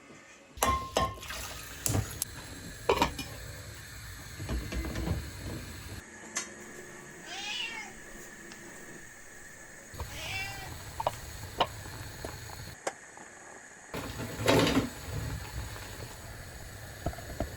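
Kitchen preparation sounds: utensils and dishes knocking and clinking in a string of sharp strokes, with a louder clatter near the end. Two short, high, wavering cries come about seven and ten seconds in.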